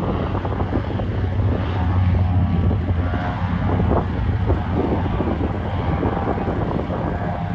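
Boat engine running with a steady low drone, with wind buffeting the microphone.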